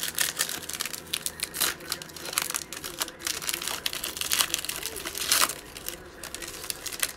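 A 2020 Mosaic football card pack's foil wrapper being torn open and crinkled by hand: a dense run of sharp crackles and rips, the loudest about two-thirds of the way through.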